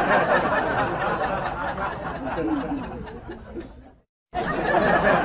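A dense murmur of people chattering and laughing. It fades and cuts out for a moment about four seconds in, then starts again.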